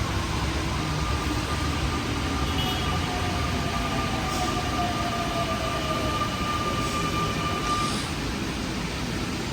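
A rubber-tyred metro train running slowly on a wet viaduct, its traction motors whining over a steady rumble and hiss of tyres on wet track. One whine holds steady and cuts out near the end, while another slowly falls in pitch as the train eases its speed.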